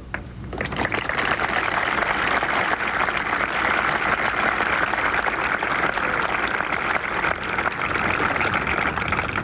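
A large outdoor crowd applauding steadily. The applause starts about half a second in.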